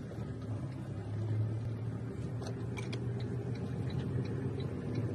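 Safari vehicle's engine running steadily while driving, heard from inside the cab, a low hum that swells about a second in, with faint light ticking over it.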